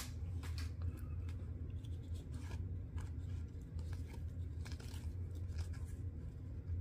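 Hockey trading cards being slid and flipped through by hand: faint, irregular clicks and rustles of card stock, over a steady low hum.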